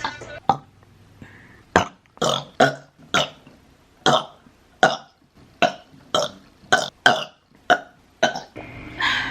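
A young woman burping over and over: a quick series of about a dozen short burps, each a fraction of a second long with brief pauses between, and a longer burp near the end.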